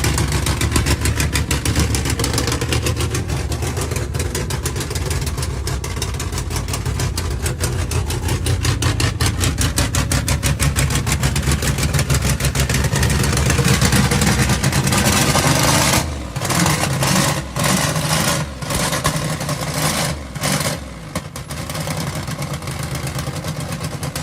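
Holden VN Calais engine idling on one of its first runs while the base settings and air-fuel ratios are being tuned. After about sixteen seconds the sound breaks off briefly several times, then settles at a lower level.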